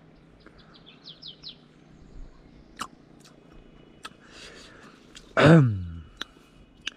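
Small birds chirping outdoors, with a quick run of short high chirps about a second in. About five and a half seconds in comes one loud, drawn-out vocal sound that falls in pitch, the loudest thing heard.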